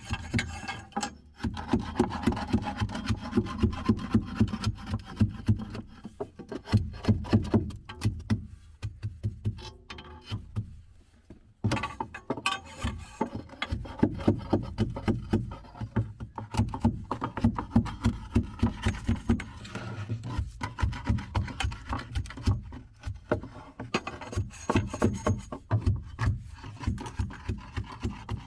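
Earth being rammed with a tamper inside timber wall formwork: a long run of rhythmic thuds, several a second, with a short pause near the middle.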